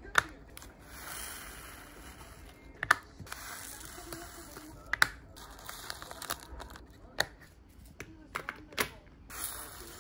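Small plastic zip bags of diamond-painting resin drills crinkling as they are handled and their drills are poured into a clear plastic compartment storage case. About five sharp clicks, roughly two seconds apart, from the case's snap lids.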